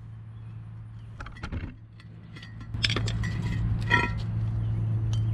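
Flathead screwdriver clicking and scraping against an old brake rotor as it pushes the rubber grommet out, with a few light clicks early on, then sharper metallic clinks from about three seconds in, the loudest about four seconds in.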